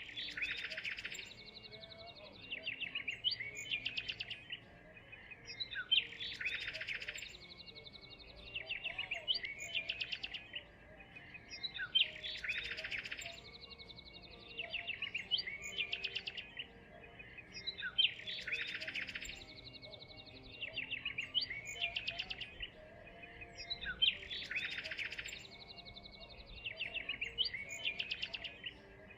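Birdsong of chirps and a fast trill, repeating in the same pattern about every six seconds, like a looped recording.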